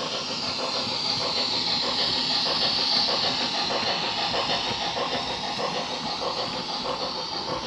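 OO gauge model steam locomotive and goods wagons running past on the track: a steady rumbling rattle of wheels and motor that swells as the train passes about two to three seconds in, then eases off.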